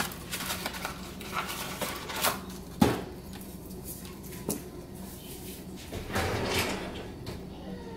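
Kitchen handling noises: a series of light clicks and knocks of things being picked up and set down on a counter, with one sharp knock just under three seconds in and a longer rustle about six seconds in, over a low steady hum.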